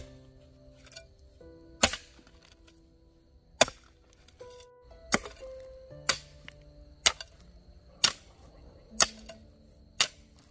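Long-handled hoe chopping into dry, clumpy soil: a run of sharp strikes, one every one to two seconds at first and about once a second in the second half.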